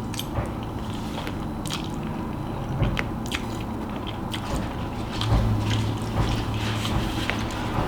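Close-miked eating: a person biting and chewing food, with scattered small crunches and wet mouth clicks. A low steady hum comes in for a couple of seconds past the middle.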